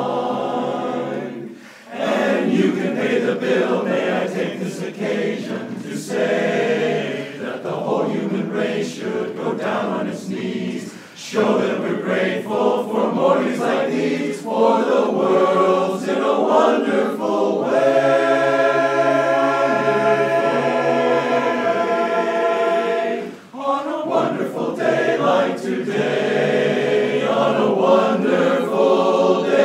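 Men's barbershop chorus singing a cappella in close four-part harmony. Phrases break briefly three times, and a long chord is held a little past the middle.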